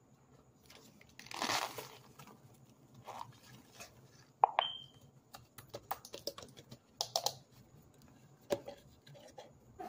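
Baked cornstarch crumbling out of a cut-down plastic Powerade bottle onto a pile of powder as the bottle is tipped, tapped and squeezed. There is a soft rush of falling powder about a second in, then a string of clicks, crackles and plastic crinkles; the loudest click comes about halfway through.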